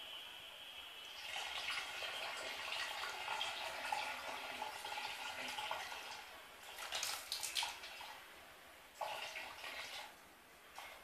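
A thin jet of water from a mini brushless DC pump splashing onto a tiled floor, with water sloshing in a plastic basin: a steady watery hiss, with louder splashing twice, about seven and nine seconds in.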